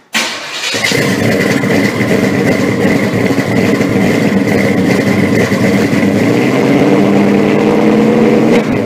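A car engine running loud and steady, starting abruptly, with a steady high whine alongside it.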